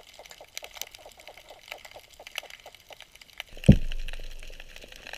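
Underwater sound through a GoPro's housing: a faint, steady crackle of many small clicks, then about three and a half seconds in a single sudden loud low thump that fades away over a second or so.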